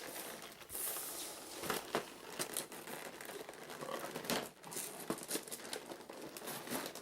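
Packaging crinkling and rustling as board-game pieces are lifted out of their box, with a few light knocks of pieces being set down.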